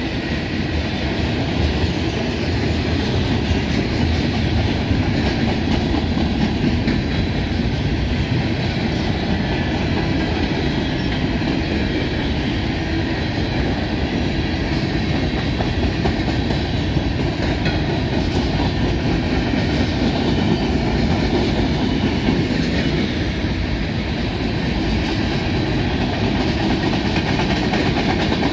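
Freight cars of a long mixed freight train rolling past at close range on steel wheels: a steady, even noise of wheels on rail, with faint thin high ringing tones above it.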